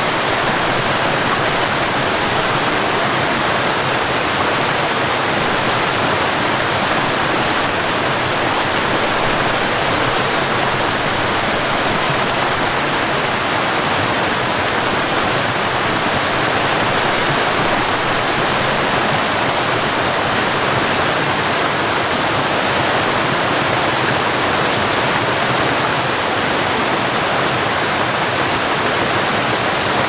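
A waterfall's rushing water, loud and unchanging.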